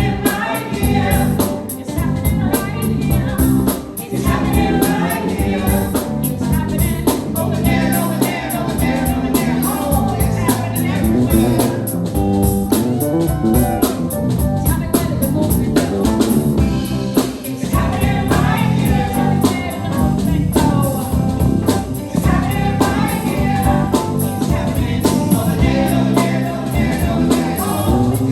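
Live band playing with several voices singing together in a gospel style, drums keeping a steady beat.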